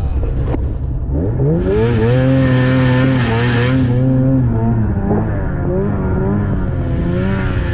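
Snowmobile engine accelerating about a second in and holding high revs for a few seconds. It then eases off and revs up again near the end.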